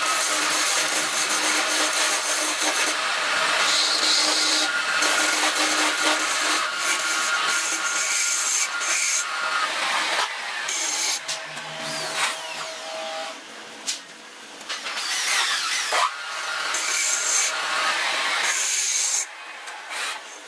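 Wood lathe running with a steady motor hum while a turning tool scrapes the spinning hardwood piece. Later a cloth is rubbed against the turning wood, and the sound drops back for a few seconds before rising again.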